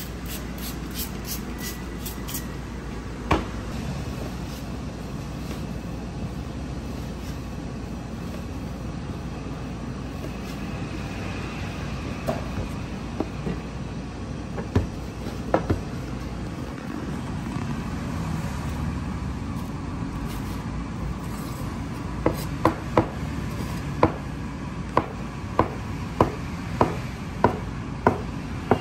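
Steady low hum with a few scattered light knocks. About 22 seconds in, a steel cleaver starts chopping through soft dough onto a wooden board: sharp knocks at an even pace, a little under two a second.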